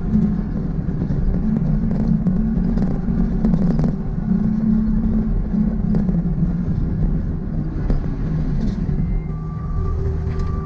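John Deere 329E compact track loader's diesel engine running under work, with a few knocks from the machine at work. Near the end its reversing alarm starts beeping.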